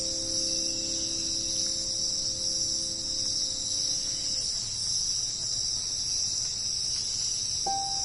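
Rainforest insect chorus: a continuous high-pitched, even shrill buzz of many insects calling together.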